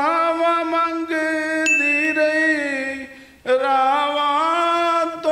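A man's solo voice chanting a Punjabi noha, drawing out long held notes that waver slowly. The notes die away about three seconds in, and a new phrase begins half a second later. A brief high chime-like tone sounds about two seconds in.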